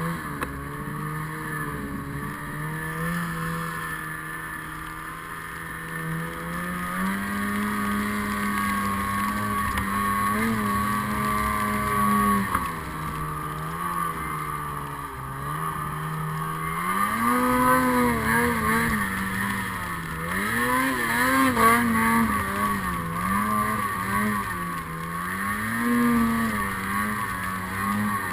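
Snowmobile engine running under throttle while the sled ploughs through deep powder. The pitch holds fairly steady for the first half, steps up about seven seconds in, then rises and falls again and again as the throttle is worked on and off in the second half.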